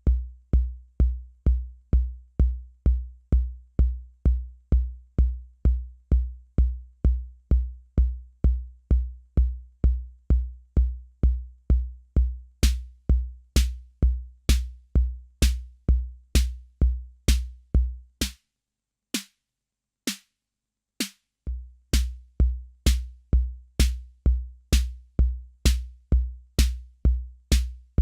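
Roland TR-606 Drumatix analog drum machine playing a steady bass-drum pattern, about two kicks a second. About halfway in, a bright high hit joins every other beat; the kick then drops out for about three seconds, leaving a few sparse hits, before the pattern comes back with both parts.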